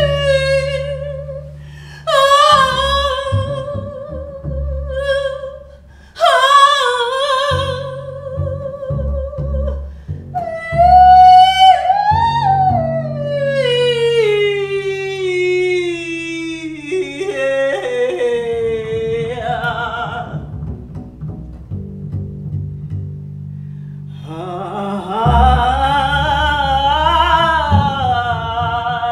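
A woman singing long, sliding notes with vibrato, including a long downward glide, over low held notes on an upright double bass. The voice drops out for a few seconds and comes back louder near the end.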